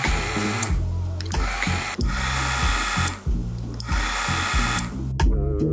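Background music with a plucked bass line, over which a small motor or power tool runs in repeated bursts of about a second each with short pauses between. The motor stops suddenly about five seconds in, leaving the music alone.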